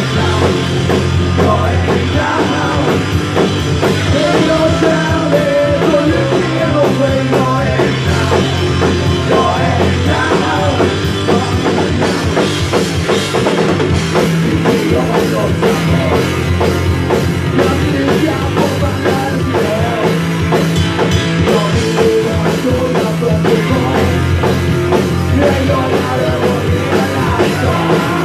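Live rock band playing a song: electric guitars, bass guitar and a drum kit going steadily and loud, with a melodic line weaving through the first half.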